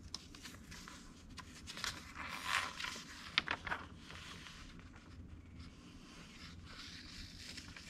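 Pages of a glossy magazine being turned and handled: paper rustling and sliding, loudest about two to four seconds in, with a few sharp crinkles.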